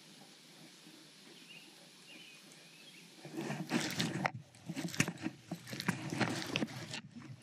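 Quiet outdoor hush, then from about three seconds in, close footsteps and rustling through the grass of a pond bank, loud and irregular at the microphone.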